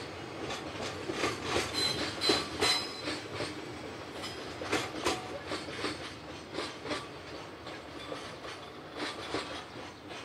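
Freight train hauled by a DE10 diesel locomotive, its wheels clattering over the rail joints in irregular knocks that fade as it moves away. A brief high squeal comes about two seconds in.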